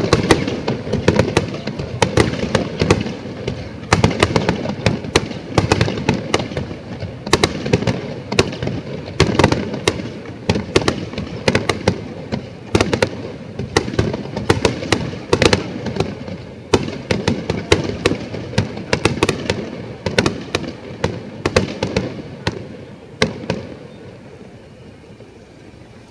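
Fireworks display: a rapid barrage of sharp shell bursts, several a second, thinning out and dying away a few seconds before the end.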